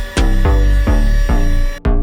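Electronic background music with a heavy bass beat about every 0.4 seconds, breaking off briefly near the end.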